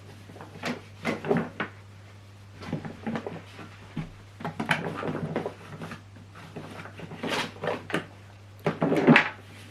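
Irregular rubbing, scraping and knocking in several separate bursts as the plastic body of a Numatic Henry vacuum cleaner is wiped down and handled by hand, with the vacuum switched off, over a faint steady low hum.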